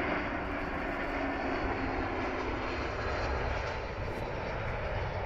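Jet engines of a landing Airbus A320-family airliner, a steady roar with a faint low hum that sinks slightly in pitch during the first few seconds as the aircraft flares and touches down.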